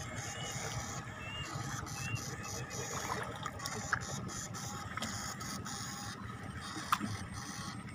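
Backpack electric eel-stunning rig (battery and inverter box with two electrode poles) buzzing steadily while it is swept through paddy water. Scattered sharp clicks come through over it, with wading in the mud.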